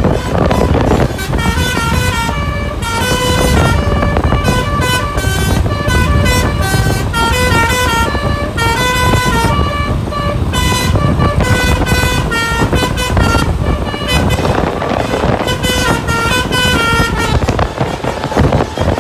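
Bus's Basuri telolet horn with the 'pianika' voice playing a quick tune of short stepping notes. It starts about a second in and runs nearly to the end, over a steady low rumble of engine and road noise.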